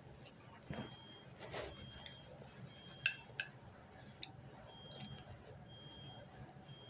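Faint sounds of a person eating a snack: soft, wet mouth sounds and a handful of small, scattered clicks and clinks.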